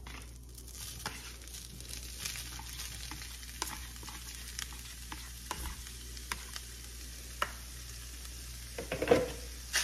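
Browned ground beef sizzling in a frying pan, a steady frying hiss with scattered crackles and pops. There is a louder sound about nine seconds in.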